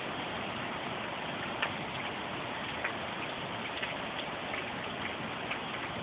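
Storm rain falling steadily as an even hiss, with scattered sharp ticks of single drops striking close by.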